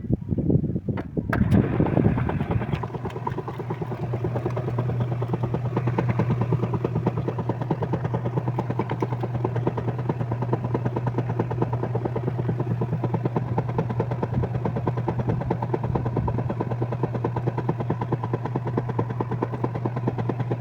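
Top-loading washing machine running through a wash, its motor humming steadily with a fast, even churning pulse that starts about a second in.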